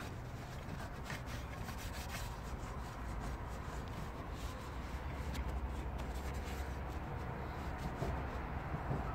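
A cloth rubbing and wiping over the metal top of a diesel fuel filter housing, cleaning off brake cleaner, with faint scattered ticks. A steady low hum runs underneath.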